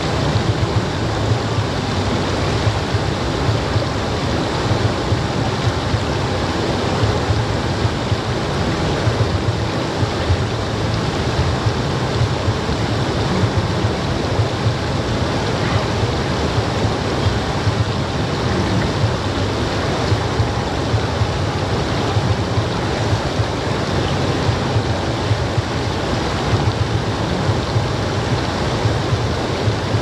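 River rapids rushing steadily over rocks and boulders, close to the microphone.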